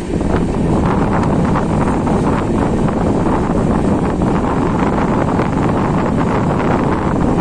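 Wind buffeting the microphone held out of a moving passenger train, over the noise of the train running along the track.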